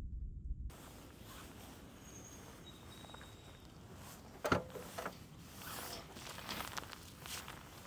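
A car's boot lid being opened by hand: a sharp clunk of the latch releasing about halfway through, then lighter clicks, rustling and footsteps as the lid lifts. A low rumble cuts off abruptly under a second in.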